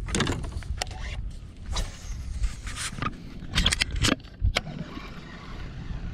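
Handling noise on a fishing kayak: irregular knocks, clicks and scrapes as a baitcasting rod and reel are picked up and handled, over a steady low rumble.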